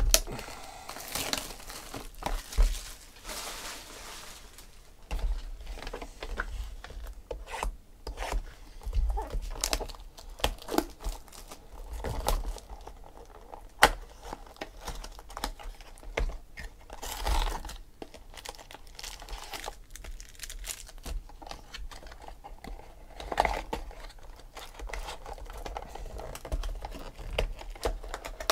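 Clear plastic shrink wrap being torn and peeled off a cardboard trading-card box: irregular crinkling and tearing, with taps and scrapes from the box being handled.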